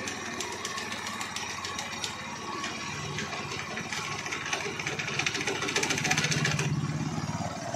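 Honda Activa 4G scooter's rebuilt single-cylinder four-stroke engine running with a fast rattle, the revs coming up about three seconds in, held higher for a couple of seconds and dropping back near the end. The rattle is one the mechanic does not like and has not yet traced.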